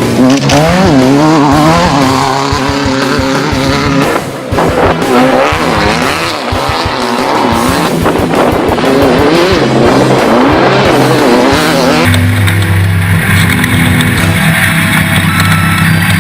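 Off-road race vehicle engine revving up and down over and over, its pitch rising and falling about once a second. About twelve seconds in it cuts abruptly to a steadier sound of held tones.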